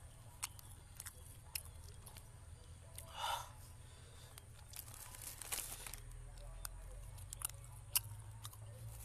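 Clear plastic food bags crinkling and rustling as a hand picks food out of them, with chewing and scattered sharp clicks.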